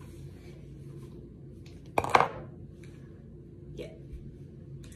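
Handling noise from a corded hair-styling tool worked through the hair, with one sharp clack about two seconds in over a low steady hum.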